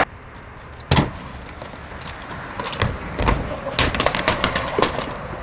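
Skateboard on a wooden mini ramp: a sharp clack as the board drops in, then rolling and a string of knocks and clacks. A heavy low thud about three seconds in comes as the skater slams onto the ramp.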